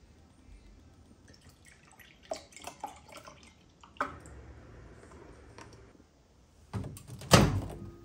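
A few light clicks, then soy milk poured from a carton into a glass mug from about halfway. Near the end the microwave door opens with two loud clunks, the second the louder.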